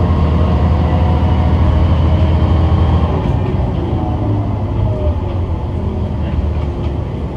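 Kishu Railway diesel railcar under way, heard from inside the car: a steady low engine drone with a whine whose pitch slides gently. About three seconds in, the engine eases off and the sound drops a little.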